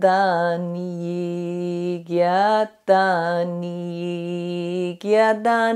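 A woman chanting in 'light language', repeating a sung syllable phrase ('giataniye') on long, steady held notes of about two seconds each, with brief breaks for breath between them. Near the end the notes grow shorter and step up slightly in pitch.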